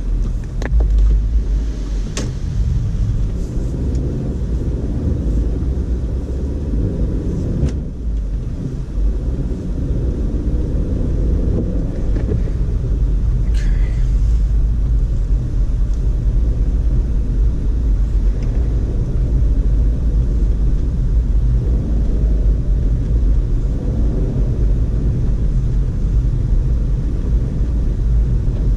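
Car driving on a snow-covered road, heard as a steady low rumble of road and engine noise. A few sharp clicks come in the first eight seconds, and there is a brief higher squeak about fourteen seconds in.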